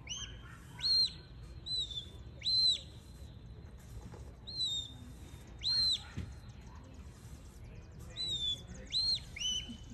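Shepherd's whistle giving a sheepdog commands: a series of about ten short, clear, high whistled notes, some arching up and down and some sliding downward.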